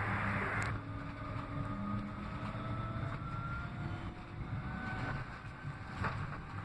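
Manchester Metrolink tram heard from inside, running along the track: a steady low rumble of wheels on rail with a faint whine from the electric traction drive that rises as it gathers speed, and a few clicks over rail joints near the end.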